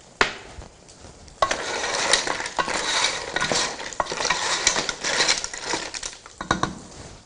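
A wooden spatula stirring steamed mussels in a pot: the shells clatter and scrape against each other and against the pot for about five seconds, after a single sharp knock near the start.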